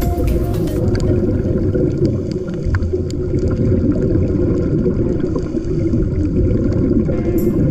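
Steady, muffled underwater rumble with gurgling water and air, deep and dull with little high sound.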